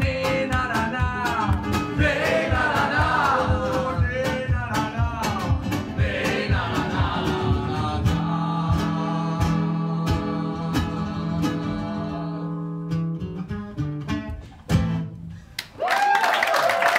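Two steel-string acoustic guitars strummed with two voices singing, closing out a song. About eight seconds in the singing stops and a long final chord rings and fades, a last strum hits near fifteen seconds, and audience applause breaks out near the end.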